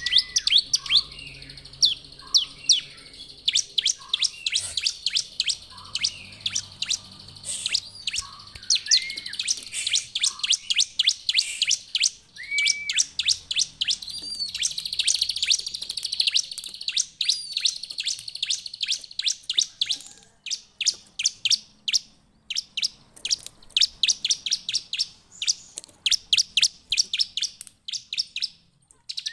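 Bar-winged prinia (ciblek) singing: a long run of sharp, high chips, at times several a second, with a few lower slurred notes in the first half.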